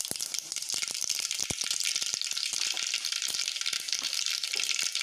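Mustard seeds sizzling in hot oil, with many quick crackles and pops over a steady hiss: the start of a tempering.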